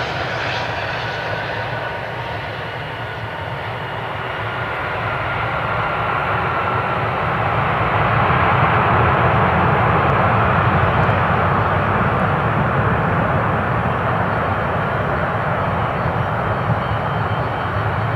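Airbus A320 jet engines on the landing rollout, just after touchdown: a falling whine at first, then the roar builds to its loudest about eight seconds in and slowly eases as the airliner rolls away.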